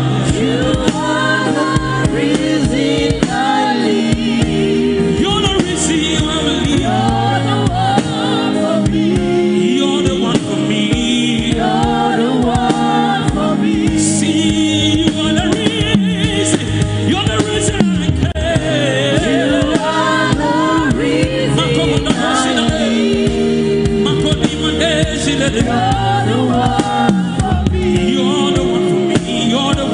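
Live gospel worship music: several singers on microphones leading a song, over steady sustained accompaniment.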